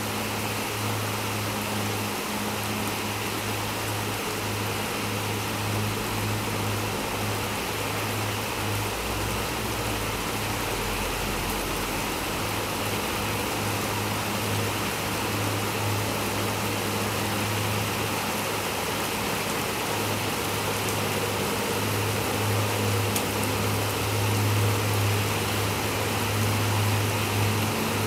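Steady rain sound, an even hiss with no breaks, with a low hum underneath that grows and fades in strength.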